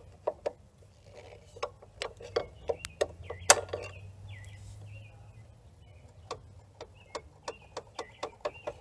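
Irregular metallic clicks and taps from a screwdriver working the rear brake master cylinder's pushrod and piston in and out on a 1981 Yamaha XS850. The loudest click comes about three and a half seconds in, and the clicks come quicker near the end. The piston keeps sticking, which the owner puts down to rust in the long-shelved used unit.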